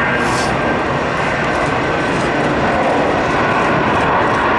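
Airbus A330-200's Rolls-Royce Trent 700 turbofans at takeoff thrust: a loud, steady jet roar through the takeoff roll up to rotation.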